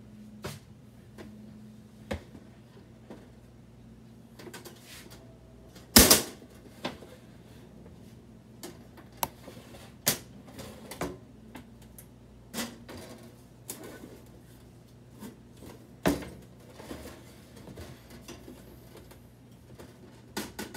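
Irregular knocks, clicks and light clatter of small plant pots being set down and the hinged roof panel of a small metal-framed tabletop greenhouse being opened and handled. The loudest knocks come about 6 seconds and 16 seconds in, over a faint steady hum.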